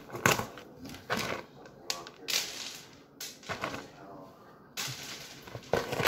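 Plastic tub of dry cat treats being handled and opened, the treats rattling and scattering onto the hard floor in about five short, irregular clattering bursts.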